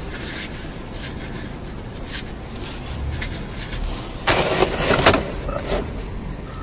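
Hand-work at a car's gearbox filler plug: small clicks and rustles of a gloved hand and a rag, with one loud rustling scrape about four seconds in, over a steady low rumble.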